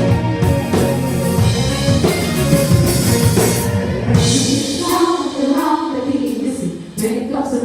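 A live band plays the intro of a gospel song with a drum kit, and singing voices come in about five seconds in.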